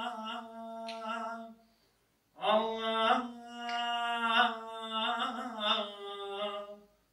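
A solo voice chanting unaccompanied, holding long notes with ornamented turns, in two phrases with a short break about two seconds in. It is the opening sung hymn (naat) of a Mevlevi Sema ceremony.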